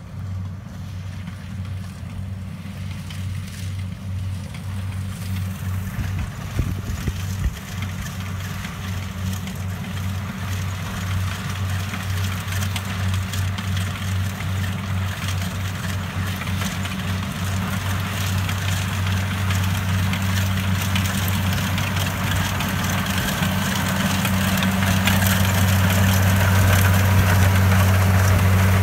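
Rice combine harvester's diesel engine running with a steady hum, its machinery adding a rising rush of higher noise as it grows gradually louder.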